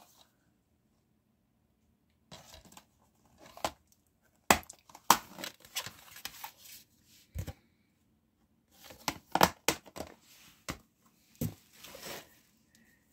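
Plastic DVD cases being handled: crinkling and rustling with sharp clicks and knocks, in several bursts separated by short silent gaps.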